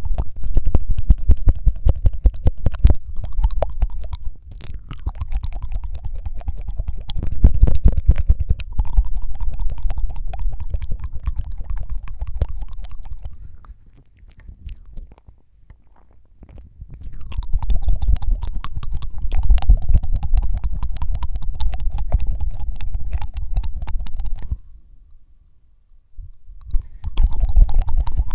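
ASMR mouth sounds: rapid wet tongue fluttering and flicking right against the microphone, a dense stream of clicks with a low rumble. It comes in long runs, stopping for a few seconds twice, about halfway through and again near the end.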